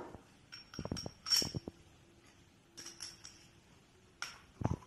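Steel sleeve parts of a self-locking coupler clinking and knocking against each other and the tile floor as they are handled: a string of light metallic clicks, several with a brief high ring, the loudest about a second and a half in, and a duller knock near the end.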